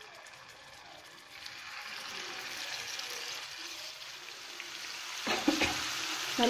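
Marinated chicken pieces sizzling in hot oil in a frying pan as they are laid in. The sizzle builds from about a second in and is loudest near the end.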